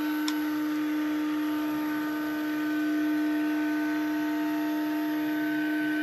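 Motor running inside an opened-up Roborock S50 robot vacuum, a steady even hum with a higher whine above it. One faint click about a third of a second in.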